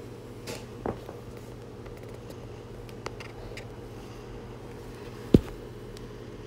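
A steady low hum with a few small clicks and one sharper knock about five seconds in, from hands handling cloth and the recording phone during quiet hand-sewing with needle and thread.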